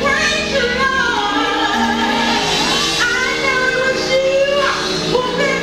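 A woman singing a gospel song solo into a microphone, holding long notes, over steady musical accompaniment.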